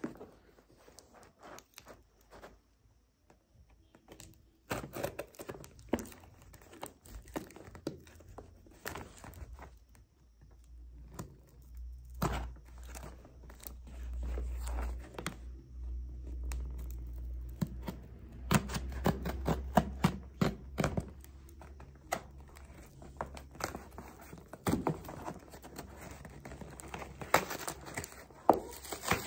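Scissors cutting into a taped cardboard parcel and the cardboard being torn and pulled open: a string of sharp snips, clicks and tearing, crinkling rustles, thickest in the second half. A low rumble runs underneath through the middle stretch.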